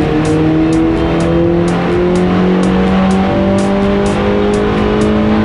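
Mini Cooper S JCW's 2.0-litre turbocharged four-cylinder under full load on a chassis dyno, revs climbing steadily through a pull. Background music with a ticking beat runs underneath.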